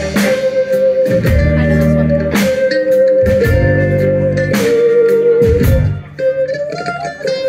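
Live rock band playing an instrumental intro on electric guitar, electric mandolin, bass and drums. A held high lead note with slight bends sounds over bass and chords, with a strong hit about once a second. Near the end the level drops briefly and the lead note slides up.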